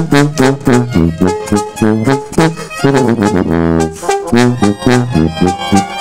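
Sinaloan banda playing live: a tuba bass line under trumpets, trombones and clarinets, with drums keeping a steady beat.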